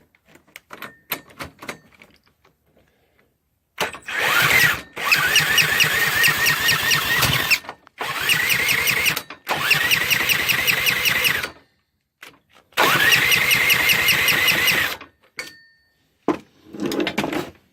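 Rato RV140 140 cc small engine being spun over in several bursts of one to three seconds. Each burst starts with a rising whine that levels off into a fast, even pulsing. The engine cranks but does not fire, in a no-start condition.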